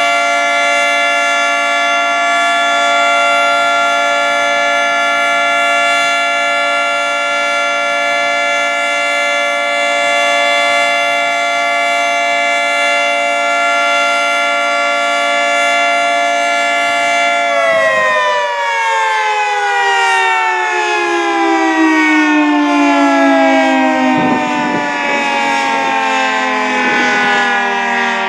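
Federal Signal 2T22 dual-tone outdoor warning siren sounding a steady chord, then winding down about seventeen seconds in, its pitch falling steadily as the rotors coast to a stop at the end of the test.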